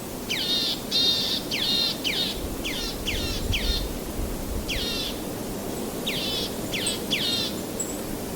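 A songbird calling in a series of about a dozen short, sweeping notes in quick clusters, with a pause in the middle, over a steady rushing wash of background noise.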